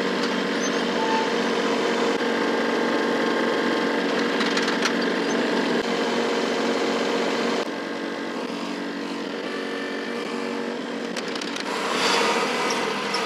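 Kubota compact tractor's three-cylinder diesel engine running with its PTO-driven post hole auger turning, the auger working in and out of a freshly dug hole in dense clay soil. About eight seconds in the sound drops and changes, and it grows louder again near the end as the tractor pulls away.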